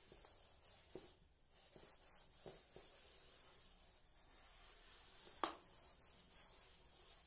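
Faint rubbing of a duster wiping chalk off a blackboard, with a few soft knocks and one sharp click about five and a half seconds in.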